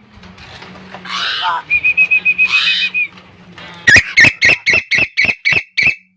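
A songbird singing: rapid trills of repeated whistled notes with rising sweeps, then, about four seconds in, a loud series of about nine sharp notes at about four a second that fade out.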